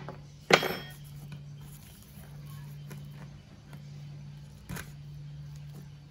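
A metal hex key dropped onto a hard worktop, a sharp ringing clink about half a second in, followed by quieter handling of the chainsaw's plastic top cover and a second knock near the end.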